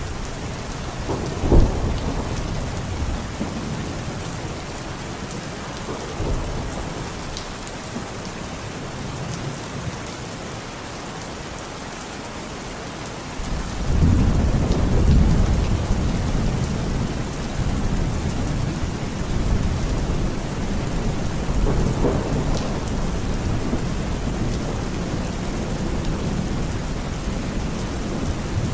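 Heavy rain pouring steadily, with thunder: a sudden crack about a second and a half in, and a long low rumble that starts about halfway through and rolls on to the end.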